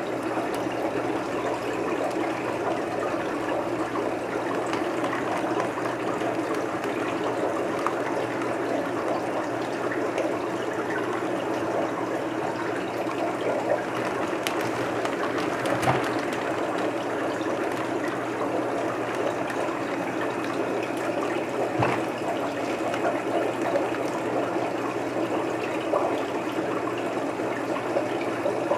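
Steady rush of running water in a fish tank, with a few brief splashes as a hand moves through the water.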